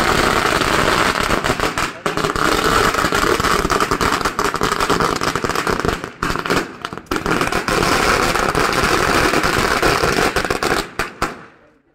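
A long string of firecrackers going off in rapid succession, a dense unbroken crackle of small bangs. It falters briefly twice and then thins out and stops near the end.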